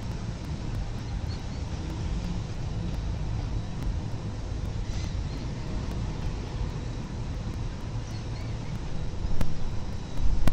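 Steady low rumble of urban background noise, like distant traffic, with a louder surge and a sharp click shortly before the end.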